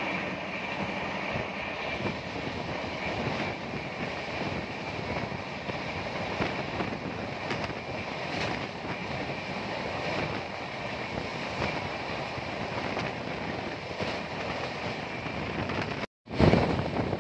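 Steady rushing rumble of train wheels on rail, heard from an open window of a moving train while a freight train of open box wagons runs close alongside on the next track, with wind on the microphone. The sound drops out for a moment near the end, then comes back louder.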